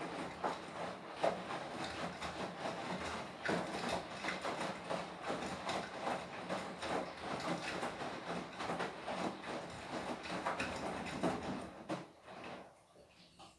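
Beko WTK104121W washing machine's drum turning, the load tumbling with a steady run of irregular knocks and swishes on a Quick 40 programme; the drum stops about twelve seconds in and the sound dies away.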